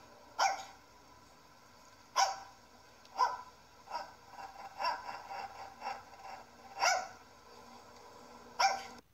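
A small Shih Tzu barking repeatedly, with sharp, single barks a second or two apart.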